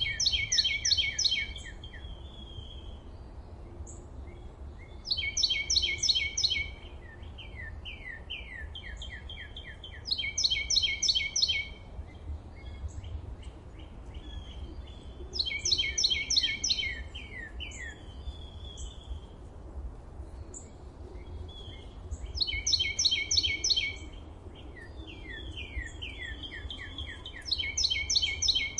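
Birds singing in woodland. One bird repeats a loud, rapid phrase of high notes about every five seconds, with softer chirps from other birds in between, over a steady low rumble.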